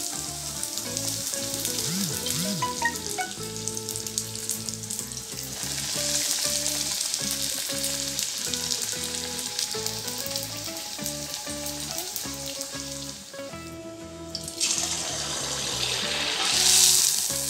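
Fuchka puris of semolina-and-flour dough deep-frying in hot oil in a steel kadai: a steady sizzle of bubbling oil around each puri, growing louder about six seconds in and again near the end.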